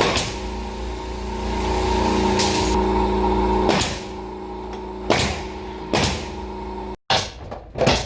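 Air compressor motor humming steadily while a pneumatic nail gun fires single sharp shots every second or so. Near the end the hum stops and quicker clicks follow.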